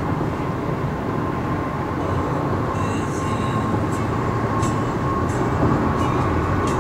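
Steady road and tyre rumble with engine noise, heard inside a car's cabin at freeway speed, with a few faint high clicks.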